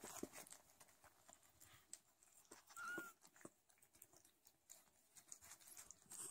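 Faint wet clicking and smacking of a Sphynx cat licking herself clean while giving birth, with one brief high squeak about three seconds in.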